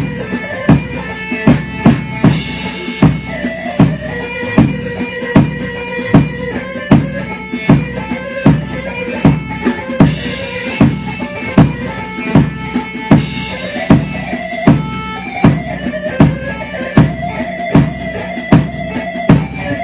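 Kurdish grani (delilo) folk dance music: a loud, uneven drum beat, struck every half second or so, under a wavering melody line.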